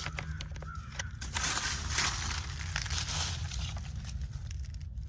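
Irregular crunching and crackling with scattered sharp clicks, over a steady low hum.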